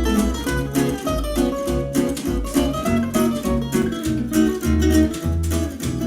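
Music with plucked-string notes over a heavy, pulsing bass line, played as a loudspeaker sound check.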